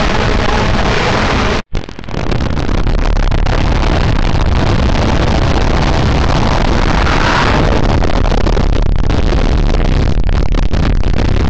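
Heavily distorted logo jingle audio, reduced to a loud, harsh wall of noise with no clear tune, cutting out sharply for an instant about two seconds in before the noise resumes.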